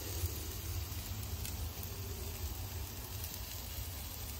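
Chicken shashlik skewers grilling over charcoal: a faint steady sizzle and hiss under a louder, constant low rumble.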